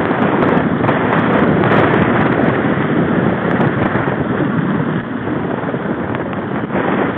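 Riding noise from a mountain bike moving along a gravel track: wind on the bike-mounted camera's microphone and tyres running on gravel make a loud, steady rush. It eases slightly about five seconds in.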